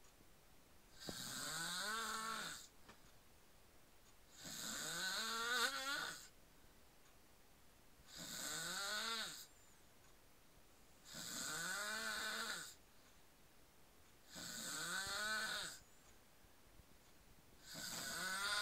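A man snoring in sleep: six evenly spaced snores, one every three seconds or so, each a drawn-out pitched sound that rises in pitch, with quiet breaths between. The last snore runs on past the end.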